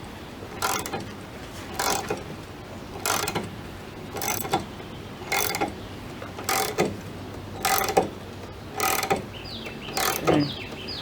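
Ratchet wrench turning the screw of a VW Beetle door hinge pin removal tool, pressing a seized hinge pin out: a short burst of ratchet clicks about once a second, nine strokes in all.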